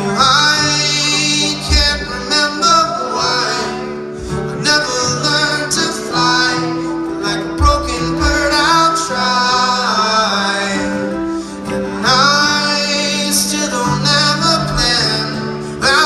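Live band playing a folk-rock song on acoustic and electric guitars, banjo and drums.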